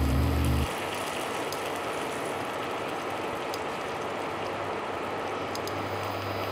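Marinated chicken pieces sizzling steadily in hot oil in a non-stick frying pan. A low mechanical drone runs under the sizzle and cuts off suddenly under a second in.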